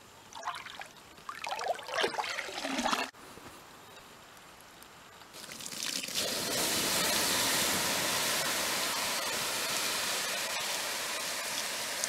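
Water splashing as a frying pan is dipped into a pond, then a steady hiss as the water is poured over hot campfire coals, sizzling into steam as the fire is put out.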